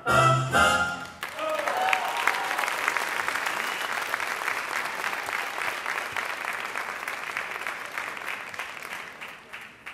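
Music ends on a final chord about a second in, then an audience applauds with a few shouts of cheering, the clapping dying away near the end.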